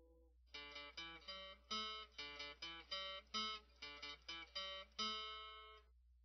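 Background music: an acoustic guitar picking a quick melody of plucked notes, which breaks off near the end.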